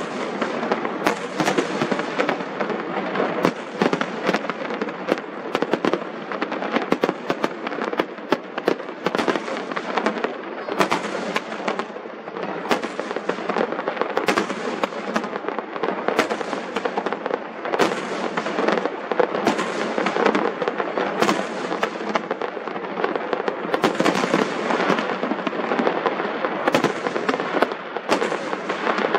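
Fireworks display: a continuous barrage of crackling with sharp shell bursts every second or two. The bursts come through as cracks with little deep boom.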